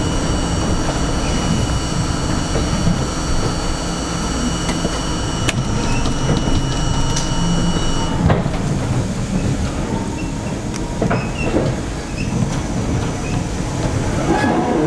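R42 subway car running along elevated/open-cut track with a steady rumble and a few sharp wheel clacks over rail joints and switches. A high steady whine stops about eight seconds in as the train nears the station.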